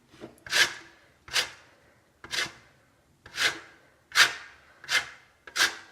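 A lemon scraped against a metal grater in repeated strokes, about one a second, grating off only the yellow zest.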